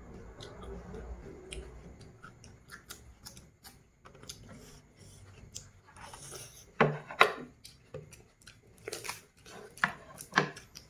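Close-up eating sounds: crisp crackles and snaps of skewered fish being pulled apart and chewed, with light clicks of chopsticks, the loudest snaps coming in the second half.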